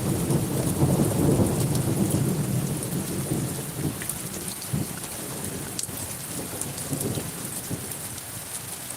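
Rain falling steadily, with a low rumble of thunder that is loudest in the first few seconds and then fades away; individual drops tick over the rain.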